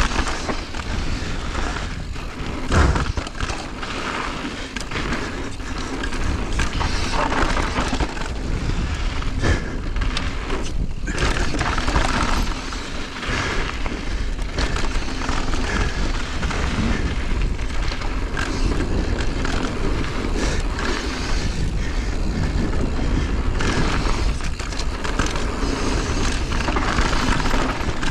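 Mountain bike riding down a rocky technical trail: tyres rolling over rock with continual knocks and clatter from the bike, the loudest knock about three seconds in.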